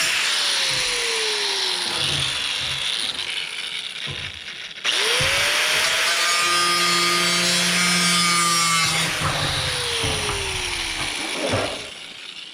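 Angle grinder with a cutoff wheel cutting sheet metal. It winds down at first, starts again about five seconds in, runs at full speed for about four seconds with a harsh cutting hiss, and then coasts down.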